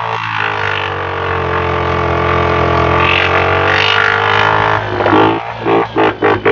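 Kawasaki KFX 50 ATV's small single-cylinder four-stroke engine running steadily under throttle, its pitch drifting slowly. Near the end it dips and surges several times as the throttle is let off and opened again.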